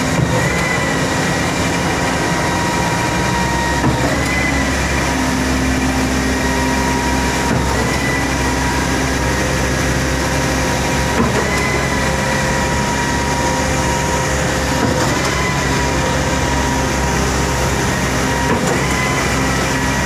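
Heavy construction machinery running: a steady engine drone under a whining hum that breaks and starts again in a regular cycle about every three and a half seconds.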